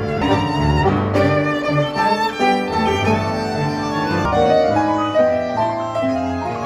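Small ensemble playing live: a violin carries the melody with vibrato over double bass and piano.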